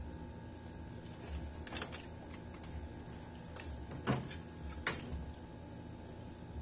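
A few light plastic clicks and knocks from a CRT TV's circuit boards and plastic chassis frame being handled and fitted back into place, the loudest about four seconds in, over a low steady hum.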